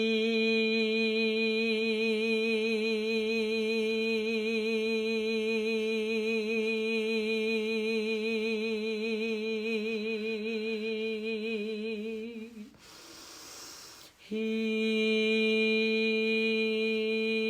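A woman humming one long steady note at a low, even pitch. About 13 seconds in she stops to take an audible in-breath, then hums the same note again.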